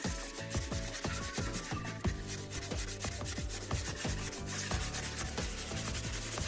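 Wood being sanded in many short, repeated strokes, over background music with steady held notes.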